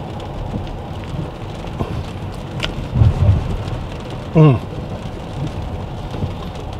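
Rain pattering steadily on a Tesla Model X's glass roof, heard inside the cabin with road noise underneath. About three seconds in there are a few low thumps, and about four and a half seconds in the man gives a short hum that falls in pitch while chewing.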